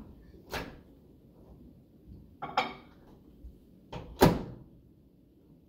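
Whirlpool over-the-range microwave door opened with a click, a bowl set inside with a brief clatter, then the door pushed shut with a loud thunk about four seconds in.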